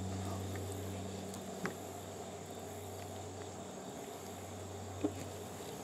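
Quiet outdoor background: insects giving a steady thin high drone over a low steady hum. There are two faint clicks, about a second and a half in and near the end.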